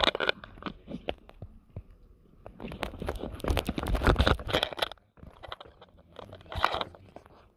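Crackling, scraping handling noise from a handheld camera being moved and gripped, in dense irregular clicks, heaviest from about two and a half to five seconds in, with shorter bursts at the start and near the end.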